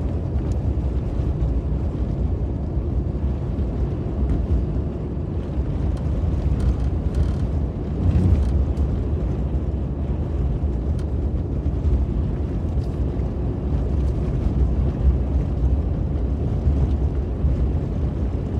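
Inside a moving vehicle's cabin on a snow-covered road: a steady low rumble of engine and tyre noise.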